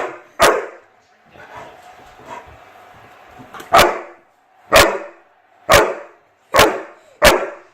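Chocolate Labrador barking: two sharp single barks half a second apart, then after a pause of about three seconds five more, roughly one a second.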